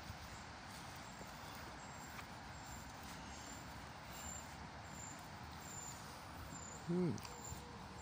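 Outdoor river-bank ambience: a steady low rustle with a faint insect chirping about twice a second, high-pitched. About seven seconds in there is a brief voice sound that falls in pitch.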